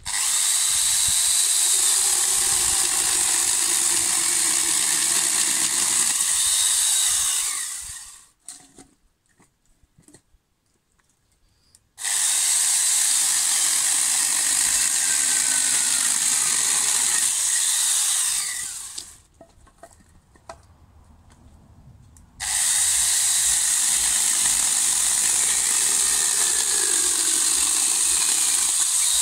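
Small corded angle grinder fitted with a chainsaw bar-and-chain attachment, running at full speed and cutting through firewood logs, which it cuts easily. There are three runs, each starting suddenly and winding down when it stops.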